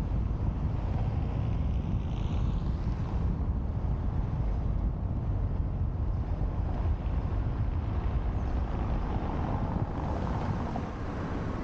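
Wind buffeting the microphone of a camera mounted on the outside of a moving car, over the low rumble of the car's tyres and road noise. The rumble is steady and eases a little near the end.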